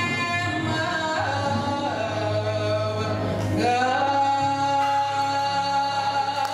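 Gospel choir singing, with a voice holding one long note from about halfway through over steady low accompaniment.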